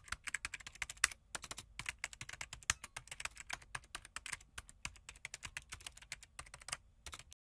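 Typing sound effect: rapid, irregular keystroke clicks, several a second, that stop abruptly near the end.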